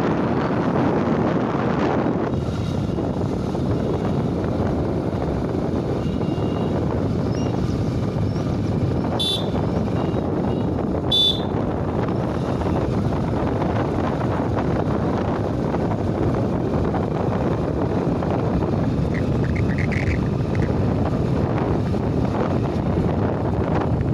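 Wind buffeting the microphone over the steady low noise of a moving vehicle. Two brief sharp high-pitched sounds stand out, about nine and eleven seconds in.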